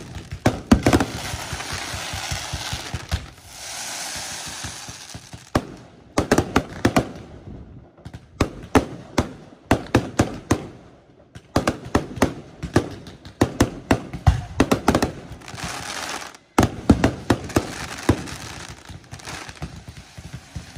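Fireworks show: rapid volleys of sharp bangs from bursting shells. Stretches of crackling hiss come between them, with brief lulls near the middle.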